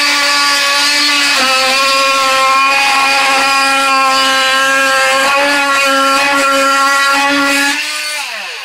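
Bosch 12-volt cordless oscillating multi-tool running at a steady pitch as its wood-and-metal blade undercuts a wooden door casing. Near the end it is switched off, and its pitch falls as it winds down.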